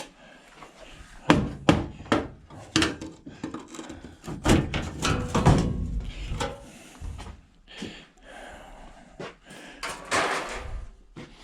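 Irregular knocks, clanks and thuds of sheet-metal panels and parts being handled and pulled about while a hot beverage dispenser is taken apart.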